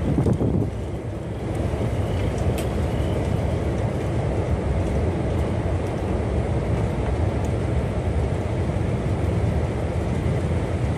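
Storm wind near a tornado buffeting the microphone in a steady low rumble, with a stronger gust right at the start.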